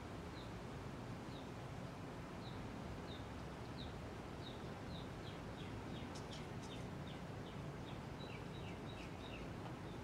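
S.M.C. Laguna KB36 ceiling fan running steadily on low speed. Over it a small bird chirps in short, falling chirps, a few at first and then faster and closer together in the second half.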